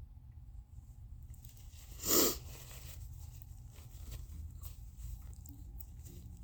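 A single short, loud sneeze about two seconds in, brought on by tickling the nose with a tissue. Faint tissue rustling and small clicks follow it.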